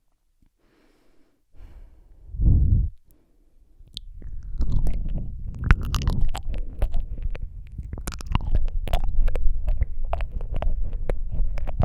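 Wet mouth sounds very close to a microphone: lip smacks, tongue clicks and licking, in a dense run of small clicks that starts about four seconds in, over a low rumble. Before that, one low thump about two and a half seconds in.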